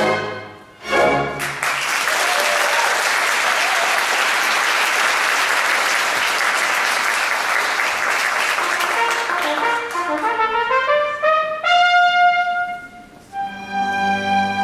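Live orchestra closes a number with two short chords, then the audience applauds for about eight seconds. Near the end the orchestra comes back in with a rising run of brass notes into the next tune.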